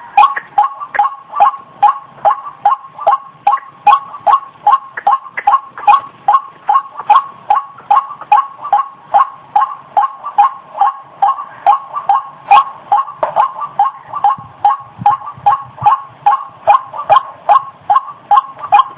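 White-breasted waterhen (ruak-ruak) giving its repeated 'kru-ak' call: short notes in a steady, unbroken rhythm of about two or three a second.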